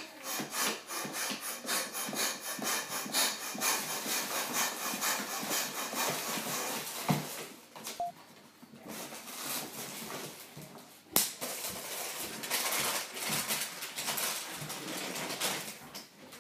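Hand air pump inflating a latex balloon in quick, rapidly repeating hissing strokes for about six seconds. After that, the balloon is handled and tied, with one sharp snap about eleven seconds in, followed by hands rubbing on the inflated balloon.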